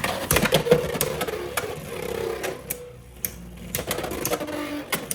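Plastic Beyblade X tops clattering against each other and the stadium, a rapid run of sharp clicks and knocks over a spinning hum.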